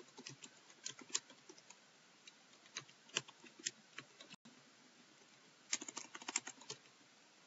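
Computer keyboard keystrokes, faint and irregular, as a file name is typed. A quick run of keys comes about three quarters of the way through.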